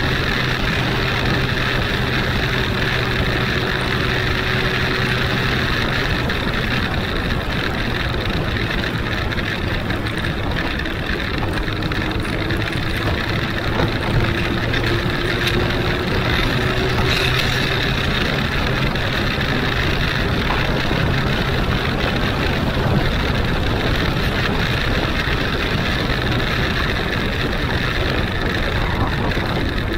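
Huanglong 600 motorcycle's inline-four engine running steadily on the move, with steady wind and road noise. Its note glides gently in pitch around the middle.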